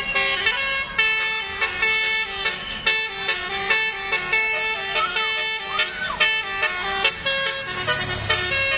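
Bus 'telolet' horn, a multi-tone musical horn, playing a quick tune of short stepped notes over and over.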